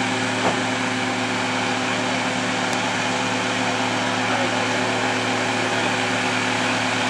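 Steiger four-wheel-drive farm tractor's diesel engine running steadily at low speed, a constant drone with a steady low hum.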